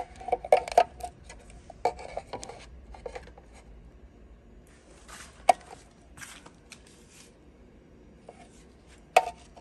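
Handling noise from a small car-audio DSP unit held and turned in the hand: light clicks, knocks and rubbing of its case. The sharpest knocks come about half a second in, around the middle and near the end.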